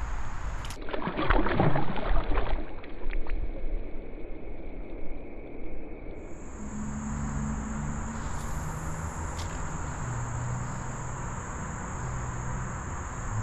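Insects buzzing in a steady high-pitched drone from about six seconds in, over a low hum that shifts in pitch. About a second in there is a rough rush of noise lasting a couple of seconds.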